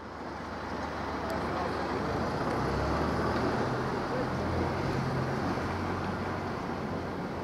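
Steady outdoor traffic and engine rumble, fading in over the first couple of seconds, with a low drone swelling a few seconds in.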